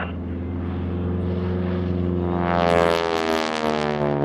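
North American SNJ-6 Texan's nine-cylinder Pratt & Whitney R-1340 radial engine and propeller in an aerobatic pass. The sound grows loud and harsh about three seconds in, then its pitch falls as the plane goes away.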